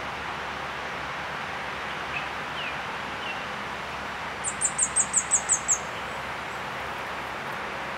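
Orange-bellied flowerpecker calling: a quick run of about nine high, thin notes, around seven a second, lasting about a second and a half, a little past the middle, over a steady background hiss.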